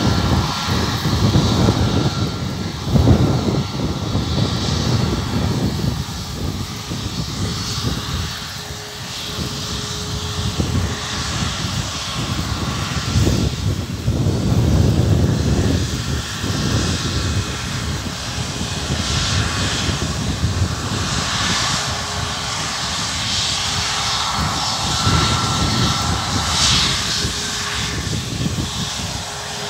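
Boeing 737 MAX 8 jet airliner's CFM LEAP-1B turbofan engines running at low taxi power as it rolls along the runway: a steady jet hiss with a faint whine, over a low rumble that swells and fades.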